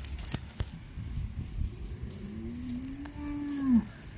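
A cow mooing once: a single long, low call that begins about two seconds in, rises slightly and drops away near the end. A few sharp clicks sound in the first second.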